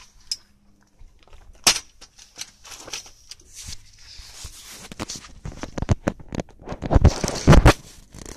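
Handling noise from a phone camera being moved and propped up: rubbing and scraping with sharp clicks, then a cluster of loud knocks near the end as it is set in place.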